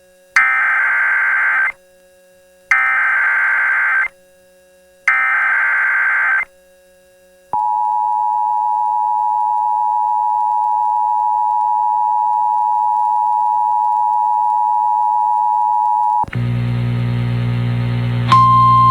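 Emergency Alert System tones: three bursts of SAME header data, each just over a second long, then the two-tone attention signal held steady for about nine seconds. It cuts to a buzzing hum, and near the end a single steady alert tone begins over it.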